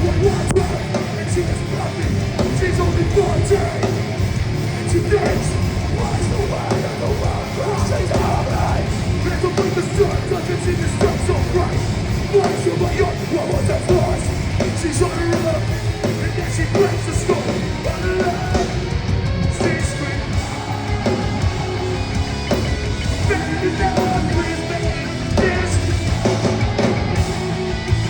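Hardcore band playing live and loud through a PA: distorted guitars, bass and drums, with shouted vocals.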